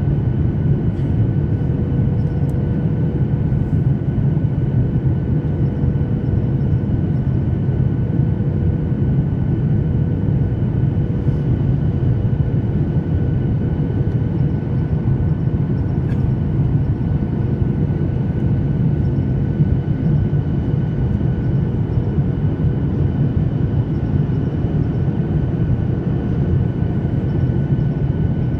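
Boeing 737-800 cabin noise in flight: a steady, loud, low roar of airflow and engines, with faint steady tones whining above it.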